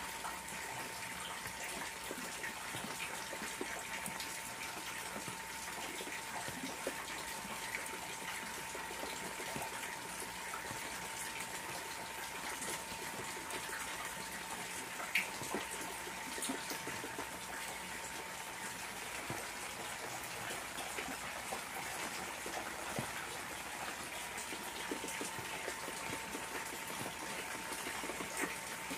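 Steady rain falling on a garden fish pond, a dense patter of drops on the water surface and the floating leaves.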